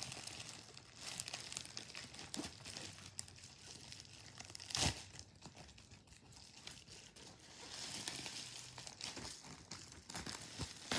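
Plastic bubble wrap packaging being handled and crinkled, with irregular crackling throughout and one sharp click a little under five seconds in.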